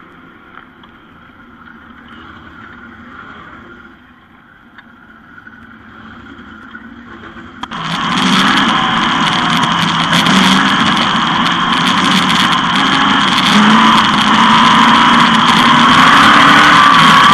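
A 360 sprint car's V8 engine: faint at first, then coming in loud suddenly about eight seconds in and running hard, its pitch rising and falling.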